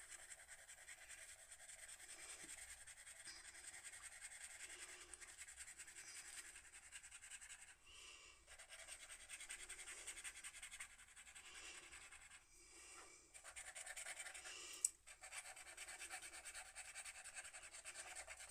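Black acrylic paint marker's nib scribbling back and forth over wax crayon on sketchbook paper: a faint, continuous scratching of repeated strokes, with one sharp click late on.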